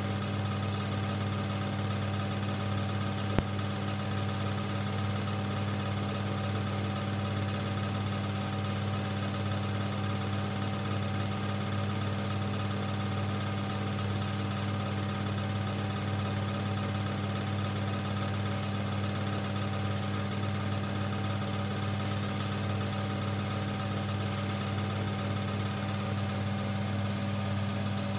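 Super 8 film projector running: a steady motor hum and whirr that does not change, with one sharp click about three seconds in.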